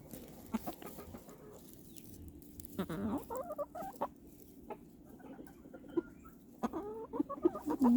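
A flock of domestic chickens clucking, with scattered short calls and a louder burst of calls about three seconds in and again near the end.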